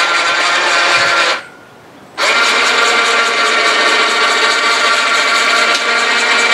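Electric cable winch motor and gears running under load, winding in cable to lift a man of about 200 pounds standing on the lift platform. It stops briefly about a second and a half in, then starts again and keeps running.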